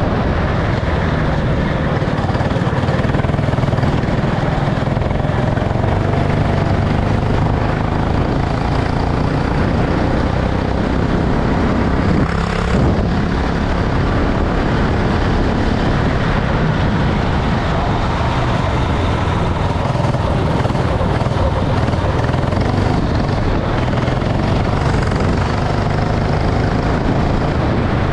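Go-kart engine running steadily at speed under a dense rushing noise, with one brief knock about twelve seconds in.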